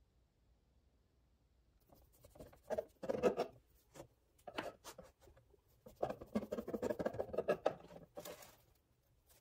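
Bread knife sawing through a block of joined pan de sal dinner buns on a cutting board, with rubbing and scraping as a hand steadies the soft bread. It starts about two seconds in, in short uneven strokes.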